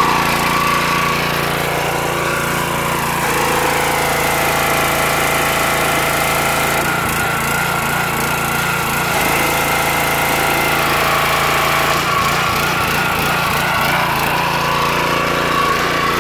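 Ryobi 3000 PSI gas pressure washer running steadily. Its note changes about three seconds in, while water sprays from the wand, and changes back about twelve seconds in as the trigger is let off and the repaired unloader valve dumps the pressure.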